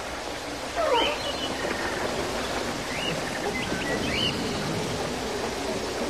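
A few short high-pitched animal calls, each rising and then falling, over a steady rushing outdoor background noise.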